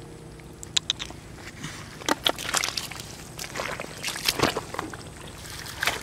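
Shallow, muddy rice-paddy water sloshing and splashing in a run of short, irregular splashes, loudest about two seconds in and again just after four seconds.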